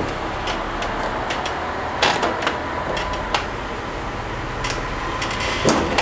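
Small metal clicks and scrapes of a screwdriver working a lock ring into the groove of a split air conditioner's brass service valve, irregular and a few at a time, over a steady background hiss.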